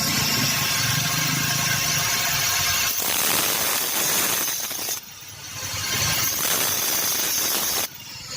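Electric power tool working a metal tube while a toothed spanner is cut from it: a steady motor whine, then a louder grinding hiss from about three seconds in, easing off briefly about five seconds in and again near the end.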